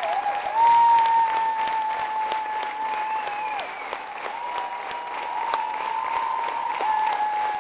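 Theatre audience applauding at a curtain call: dense, steady clapping from a large crowd. Long, steady high tones are held above the clapping several times.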